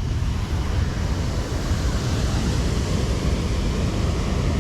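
Steady, even rushing noise, heaviest in the low end, with nothing distinct standing out.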